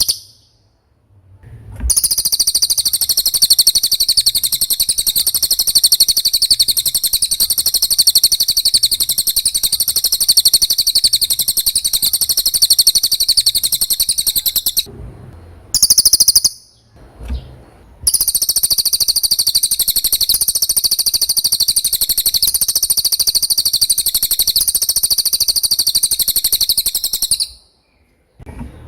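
Cililin (hanging parrot) singing: a very rapid, shrill, high-pitched trill held for long stretches. It breaks off about halfway, gives one short burst, then resumes and stops near the end.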